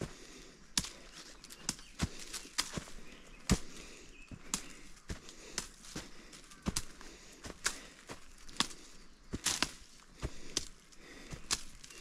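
A hiker's footsteps and his passage through undergrowth on an overgrown mountain trail: irregular sharp clicks and snaps, about one or two a second, over a faint steady hiss.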